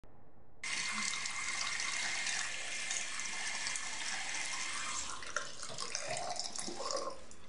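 Water running in a bathroom, a steady hiss that starts abruptly about half a second in and stops shortly before the end, with a few small knocks near the end.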